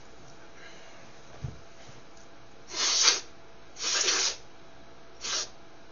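A man snorting a line of tobacco snuff up his nose: three sharp sniffs, the first two long and the third shorter. A soft bump comes about a second before them.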